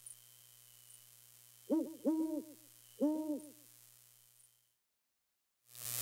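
An owl hooting: two short runs of low, deep hoots, about two seconds in and again about a second later, over a faint steady hum.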